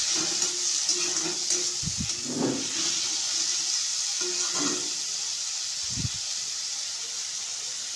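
Onion and tomato masala sizzling steadily in hot oil in a kadai while a spatula stirs it, frying down until the oil separates. A couple of dull knocks from the spatula.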